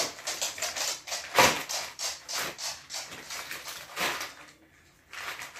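Crinkling and rustling of clear plastic packaging as fishing lures are handled, in quick irregular crackles, loudest about a second and a half in and dying away near the end.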